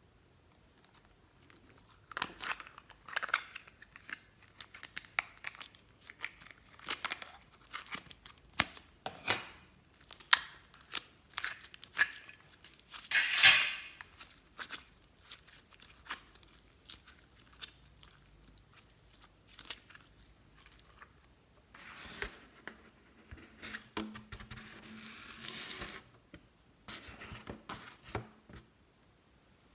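Hands working slime, giving a run of short crackles, pops and clicks, with one louder crackle about halfway through and a longer rustling stretch near the end.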